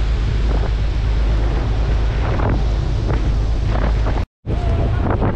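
Wind buffeting the microphone, a loud, steady low rumble with faint voices underneath. It cuts out for a split second just after four seconds in.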